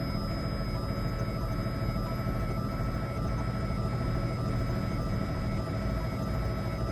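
Helicopter engine and rotor noise heard from inside the cabin: a steady drone with several constant high-pitched tones over it.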